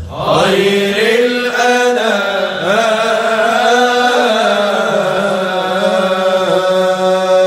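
Unaccompanied men's voices singing a Sufi muwashshah, long melismatic phrases that rise and fall in pitch over a low note held steadily underneath. A new phrase enters together right after a brief breath at the start.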